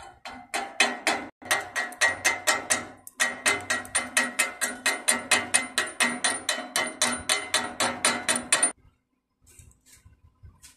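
Rapid hammer blows on metal, about five a second, each strike ringing, with two short breaks early and a sudden stop about two seconds before the end.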